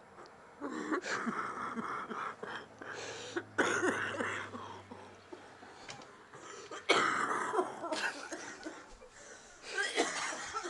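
A person coughing in about four bouts a few seconds apart, each starting suddenly; the loudest comes about seven seconds in.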